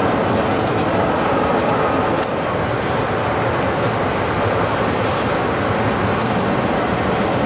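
Class 73 electro-diesel locomotive coupled to a rail crane at the platform: a steady, unbroken train running noise.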